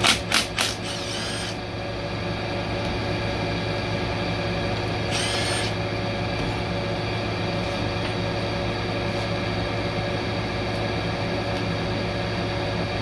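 Cordless power ratchet spinning out valve-body bolts in short trigger bursts: a few quick pulses right at the start, another about a second in, and one more about five seconds in. A steady hum runs underneath.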